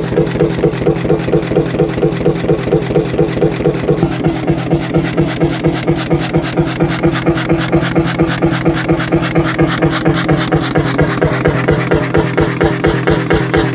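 Beijers Motorfabrik single-cylinder hot bulb engine running steadily, an even, rapid beat of firing strokes over a low hum.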